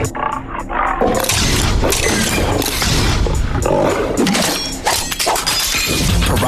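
Snarling, roaring monster sound effects for animated Piraka creatures, with crashes. After a quieter first second the sound turns dense and loud.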